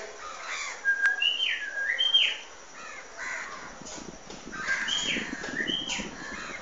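A pet myna whistling and calling: two bouts of whistled notes, each a steady whistle followed by quick up-and-down glides, about a second in and again about five seconds in, with rougher calls between them.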